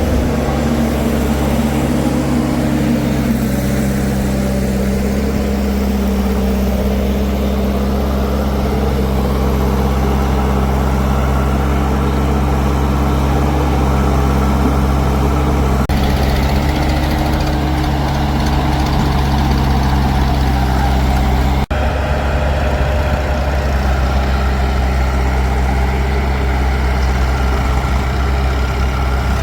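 Diesel engines of a JCB 3DX backhoe loader and a tractor running steadily at a low, even pitch, broken once by a brief cut about two-thirds of the way through.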